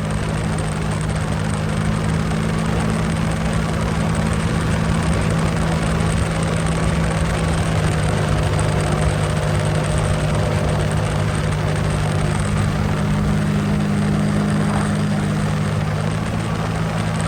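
Sea-Doo jet ski engine running steadily under way, its hum holding a nearly constant pitch over a rush of wind and water noise.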